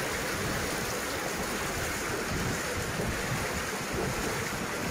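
Steady rush of floodwater pouring and flowing over a road, with wind gusting on the microphone.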